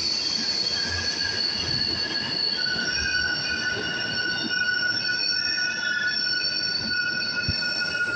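New York City subway train running on steel rails, its wheels squealing in several high-pitched steady tones at once, some dropping out and new ones joining, over the rumble of the cars.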